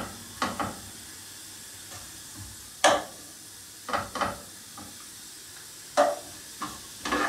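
Bacon and onion frying in oil in a non-stick frying pan with a faint steady sizzle, while a spatula scrapes and knocks against the pan several times at uneven intervals as the bacon pieces are broken up.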